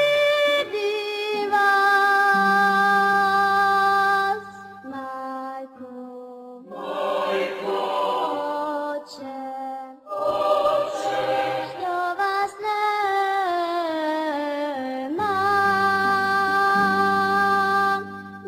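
A sung lament: one voice holding long, wavering notes that slide downward in places, over a low sustained drone. It drops quieter for a stretch about a third of the way in.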